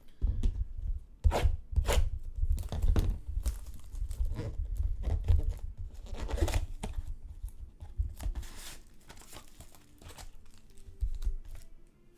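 Trading card pack wrappers being torn open and crinkled, with irregular rustles and low handling thuds.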